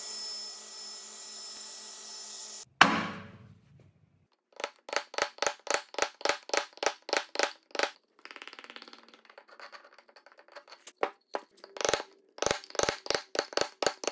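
A spindle shaper's cutter running steadily, cut off suddenly by a loud burst. Then a steel chisel is struck in quick, ringing blows, about four a second, paring the tenon's shoulder, with a softer scraping stretch of hand paring between two runs of blows.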